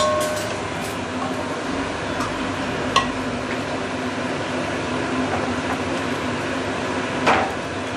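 A wooden spoon stirs soup in a stainless steel pan, with a few light knocks against the pan near the start, about three seconds in and near the end, over a steady hum and hiss.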